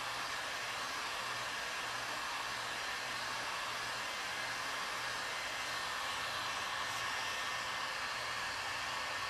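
Electric heat gun running steadily: a fan-blown hiss of hot air with a faint steady whine.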